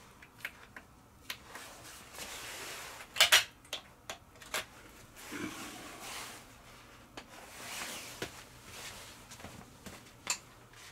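Hands handling an opened DVR recorder and its power cable: scattered clicks and knocks of plastic and metal with soft rustling between, the loudest a sharp pair of knocks about three seconds in.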